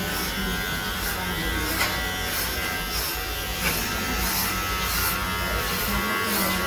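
Electric hair clippers buzzing steadily while shaving a head down to a buzz cut, with two faint clicks about two seconds and about three and a half seconds in.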